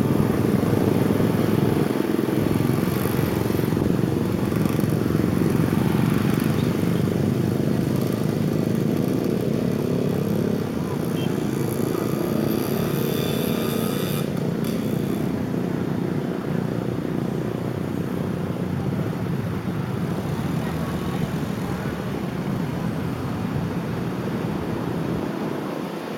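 Steady wind and road noise from a moving car, picked up by a camera mounted on its roof, with traffic passing alongside.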